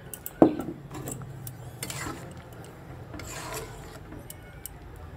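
A metal spatula stirring vegetable dal in an aluminium pan and scraping against the pan, with a sharp knock against the pan about half a second in and further scrapes around the middle.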